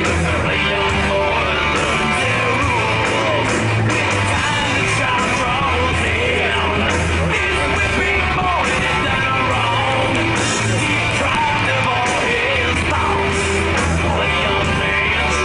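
Rock music with a singer's voice over a steady bass line, playing without a break.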